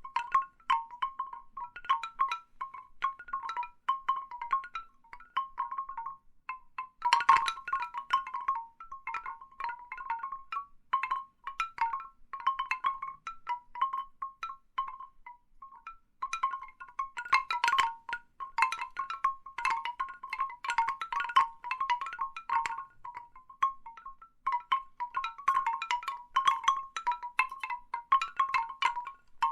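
Large bamboo wind chimes knocking together: short hollow clonks ringing around one pitch, coming in irregular flurries that thicken and thin, with a sparse lull a little before the middle.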